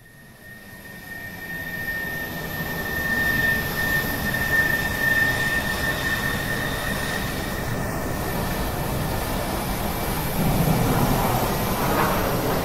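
Airbus A380's Rolls-Royce Trent 900 turbofans on final approach, gear down: a steady rushing jet noise with a high whine. It fades in at the start and gets louder near the end as the airliner comes close overhead.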